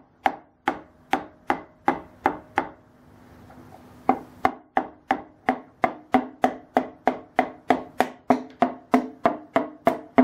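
Hammer tapping a piston down through a ring compressor into the cylinder bore of a GM LNF engine block, a run of light, evenly spaced taps, each with a short metallic ring, about two to three a second. They pause briefly around three seconds in, then resume a little faster as the rings are driven into the bore.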